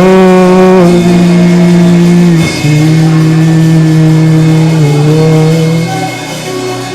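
Worship music of long held, sustained notes, with the low note stepping down about two and a half seconds in and the upper notes shifting near five seconds.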